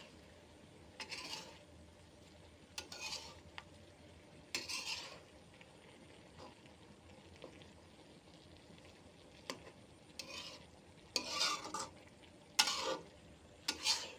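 A spatula scraping and stirring food in a frying pan, one short stroke every second or two, louder near the end, over a faint steady sizzle.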